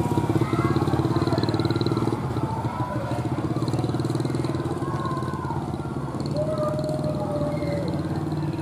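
KAIS 4 track-inspection railcar's diesel engine running steadily as the railcar approaches slowly.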